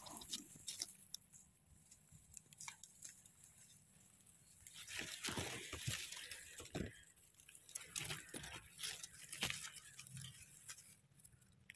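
Faint crackling and rustling of dry leaves, twigs and moss on the forest floor as a small porcini mushroom is picked and handled, busiest in the middle.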